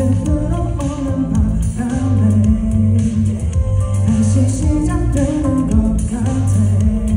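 Male pop vocalist singing live over a backing track (MR) with bass and guitar, heard through the hall's PA.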